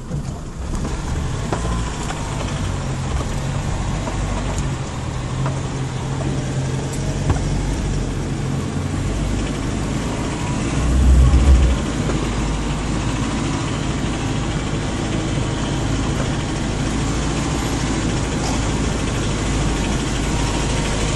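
Land Rover Defender Puma's diesel engine running steadily at low revs while it crawls up a steep dirt hill, heard from inside the vehicle. About eleven seconds in, a deeper, louder rumble swells for about a second.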